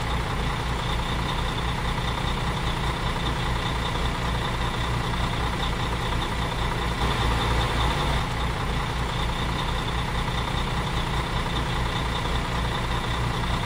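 Heavy truck engine idling steadily with a fast, even low throb, laid over the toy truck's movement as a sound effect.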